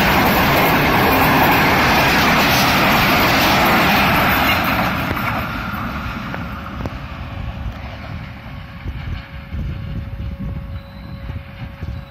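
Pakistan Railways passenger coaches rolling past close by on the next track: a loud, steady rush and rumble of wheels on rails that fades over about four to six seconds as the train draws away. A quieter, unsteady low rumble of wind on the microphone follows.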